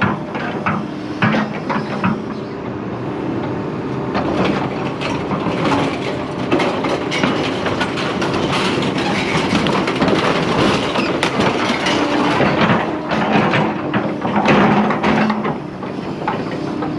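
Scrap metal clanging and clattering as pieces are unloaded, a dense, continuous run of knocks and rattles.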